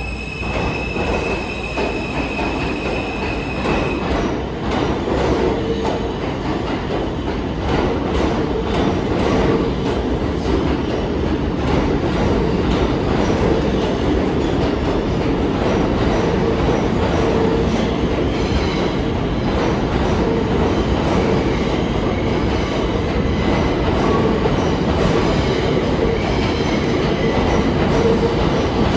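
New York City subway train running along the track, heard from inside the car: a steady rumble with wheels clicking over rail joints. It grows a little louder after about four seconds.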